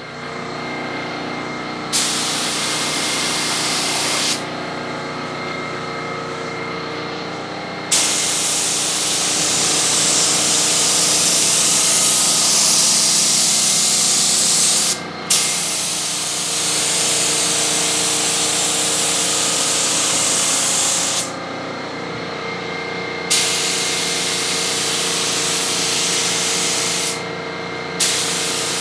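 Spray gun laying down primer in long hissing passes, five of them, each starting and stopping suddenly with short pauses between, over a steady motor hum.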